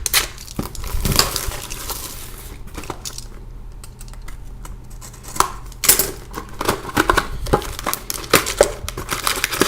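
A sealed box of hockey card packs being torn open and the packs pulled out: crinkling, tearing and light clicking handling noises, sparser for a few seconds in the middle, then quick and dense.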